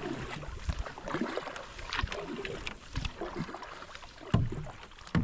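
Canoe being paddled: water splashing with scattered irregular knocks, the sharpest a little after four seconds in.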